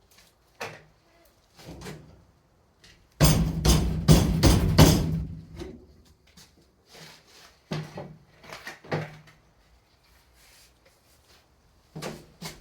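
Steel hat channel being worked into place: a run of metal knocks and clatter, with a dense burst of strikes about three to five seconds in and scattered single knocks before and after.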